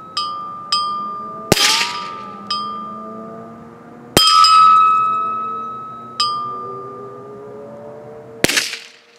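Steel bell target ringing as .22 LR bullets from a Ruger 10/22 strike it: about six sharp metallic clinks, each leaving a clear bell tone that fades over a second or two. Three louder cracks come among them, the last near the end without any ring.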